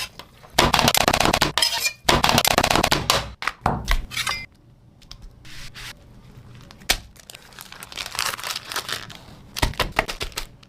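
Crinkling and tearing sounds in bursts, loudest in the first three seconds and again near the end, with a few sharp knocks in between.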